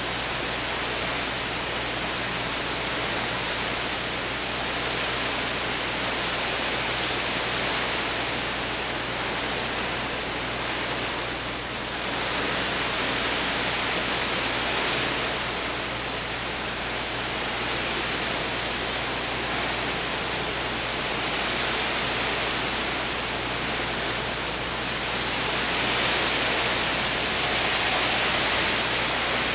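Heavy rain pouring down steadily onto a wet road, a dense even hiss. Near the end a car drives through the standing water, its tyre hiss swelling over the rain.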